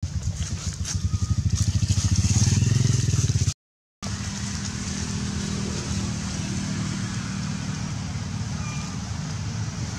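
A motor vehicle engine, likely a motorcycle, running close by: rapid low firing pulses grow louder for about three and a half seconds, then after a brief cut a steadier low engine hum carries on.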